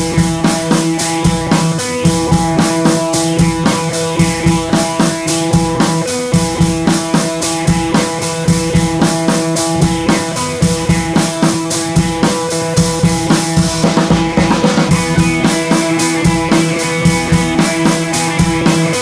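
Background music: a drum-kit beat of about four hits a second over sustained guitar-like tones.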